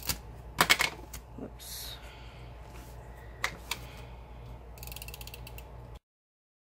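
Small plastic clicks and ticks of a handheld tape roller dispenser and of washi tape being unrolled and handled on a paper planner page, with a loud cluster of clicks under a second in and a rapid crackle of ticks near the end. The sound cuts off abruptly about six seconds in.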